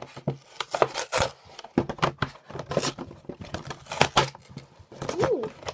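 Cardboard game box being opened by hand: a run of short tearing and scraping noises as the glued flaps are pulled apart.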